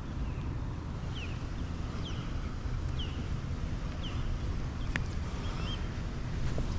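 Wind buffeting the microphone in a steady low rumble, with a bird giving short, falling chirps about once a second. One sharp click about five seconds in.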